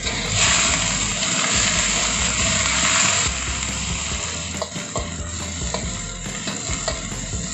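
Long beans and carrots sizzling and bubbling in a wok, loudest for about the first three seconds, then a quieter sizzle. A spatula stirring the vegetables gives a few clicks and scrapes against the wok in the second half.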